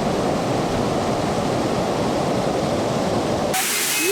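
Steady rushing of flowing water from a stream or waterfall. About three and a half seconds in it switches abruptly to a louder, hissier rush.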